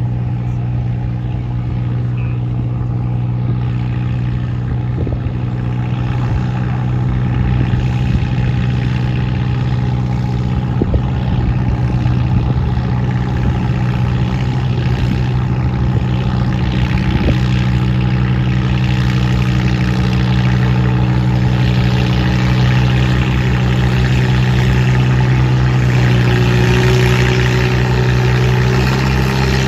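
Antique Minneapolis-Moline tractor engine running steadily under heavy load as it drags a weight-transfer pulling sled, the sound growing louder as the tractor comes closer.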